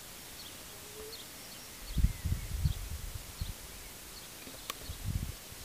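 Outdoor field ambience: small birds chirping faintly, broken by irregular low muffled rumbles about two seconds in and again around five seconds, with one sharp click just before the second rumble.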